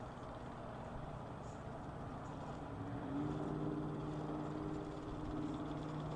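Hobbywing QuicRun electric motor and SCX10 II gear transmission of an RC rock crawler whining under throttle as it tries to claw back up a steep rock face with poor traction. A steady whine sets in about halfway through.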